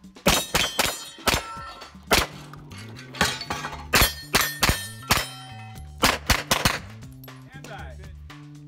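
Canik TP9 SFx 9mm pistol fired in fast strings, a dozen or more shots, with steel targets ringing and clanging when hit. A music track with a stepping bass line plays underneath, and the shooting stops over the last second or so.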